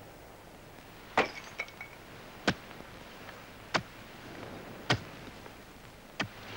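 A hoe striking dry, tilled earth in steady strokes, a sharp chop about every 1.2 seconds, starting a little over a second in, one or two with a short metallic ring.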